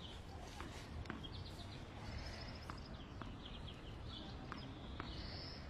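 Small birds chirping and trilling over low steady background noise, with a few sharp, separate clicks of Subbuteo figures being flicked into the ball on the table.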